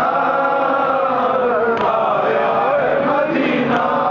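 A crowd of men chanting a noha, the Urdu lament of Muharram mourning, in unison behind a lead reciter: one slow, drawn-out melody carried by many voices without a break.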